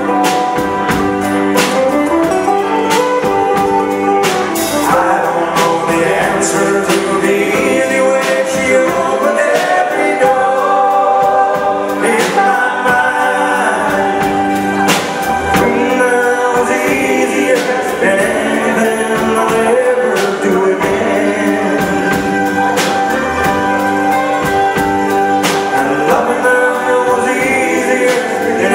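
Live band playing a pop song with acoustic and electric guitars, bass guitar and drums, and men singing.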